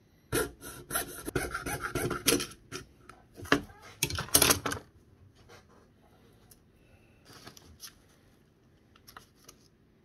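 Jeweller's saw cutting through a piece of metal on a wooden bench peg: a run of rapid rasping saw strokes that stops about five seconds in. A few faint scrapes and clicks follow.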